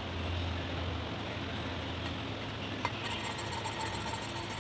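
Steady low mechanical rumble with a single sharp click about three seconds in.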